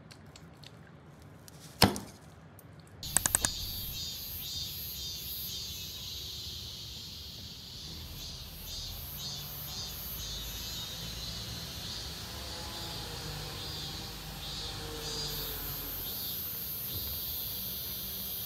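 A fork clinks sharply against a plate about two seconds in. A few quick clicks follow, and then a chorus of summer cicadas buzzes in the trees with a steady, pulsing high drone over a low background rumble.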